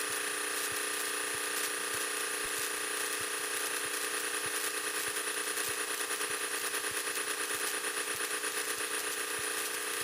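Single-engine Cessna's piston engine and propeller running at low taxi power, a steady hum heard inside the cockpit, with a regular throbbing pulse in the loudness through the middle stretch.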